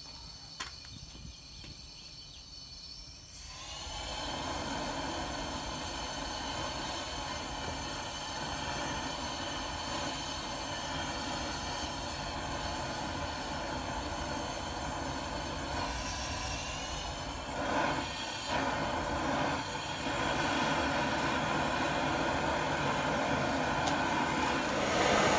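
A homemade compressed-air-fed propane forge burner. At first a soft flame flutter, then about three and a half seconds in the air is opened and the burner settles into a steady rushing roar of air and burning propane, a little louder about twenty seconds in. This is the sound of a really clean burn.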